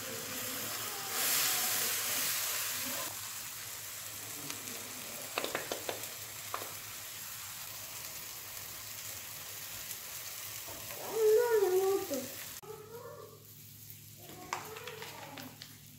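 Beef burger patties sizzling on a hot griddle pan over a gas burner, loudest in the first few seconds, with a few sharp clicks around the middle. Near the end a short, loud, wavering voice-like sound rises above the sizzle, and then the sizzle stops suddenly, leaving a quieter room with scattered light clicks.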